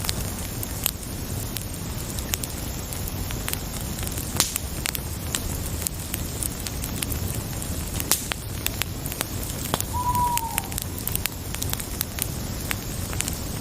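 Wood fire burning: a steady low rush with sharp crackles and pops scattered throughout. About ten seconds in, one short falling note sounds over it.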